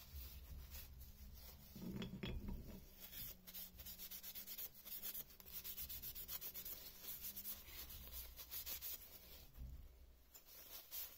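Cotton rag rubbing oil finish into a padauk wooden bowtie: faint, quick back-and-forth wiping strokes that pause briefly near the end.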